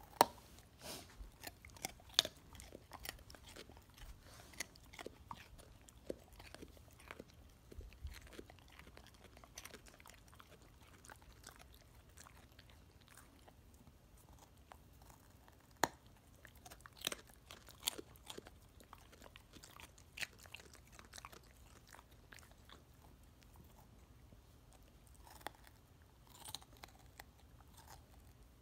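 A pit bull crunching and chewing a raw carrot: irregular sharp crunches with wet chewing between them, the loudest right at the start and about halfway through, then a quieter stretch near the end.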